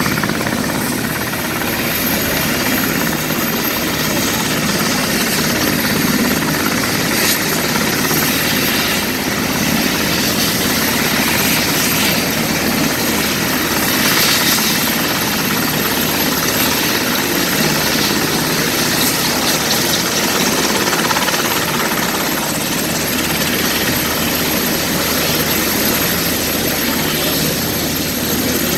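Presidential helicopter's turbine engines running on the ground: a steady rush with a thin high whine, unchanging throughout. Air Force One's jet engines, fading as it climbs away, may add to the rush.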